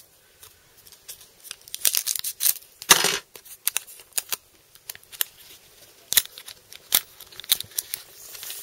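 Foil Pokémon TCG booster pack wrapper crinkling and rustling as it is handled and worked open, in scattered crackles and sharp clicks, the loudest about two to three seconds in.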